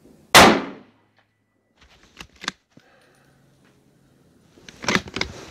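A single rifle shot about a third of a second in, dying away over half a second. Two sharp clicks follow a couple of seconds later, then the bolt is worked near the end, a quick run of metallic clicks and rattles.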